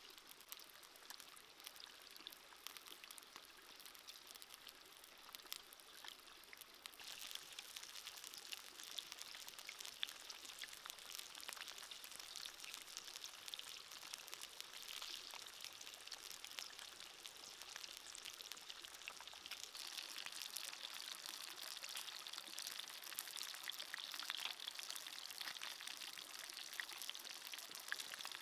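Fish sizzling in their juices on a clay plate over a wood fire: a faint, dense hiss of tiny crackles that grows louder about seven seconds in.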